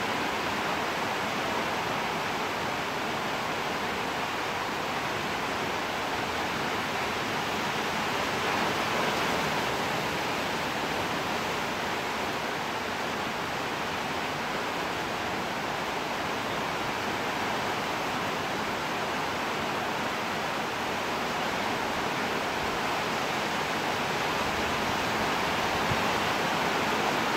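Steady rain falling, an even hiss that holds the same without breaks.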